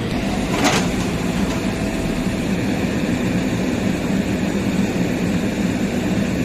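Backhoe loader's diesel engine running steadily under load, with two short sharp knocks, one at the start and one just under a second in.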